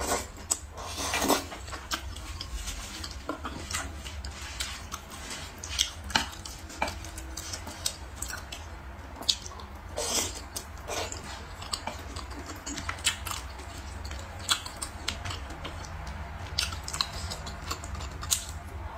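Eating utensils clicking and scraping against bowls and plates at irregular moments, with chewing in between, over a steady low hum.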